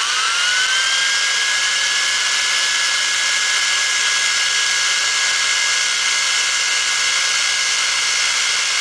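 Electric drill motor running at full speed with a steady high whine, which rises as it spins up over the first second, turning a chucked .223 brass case against a hand-held drill bit to bore out its flash hole.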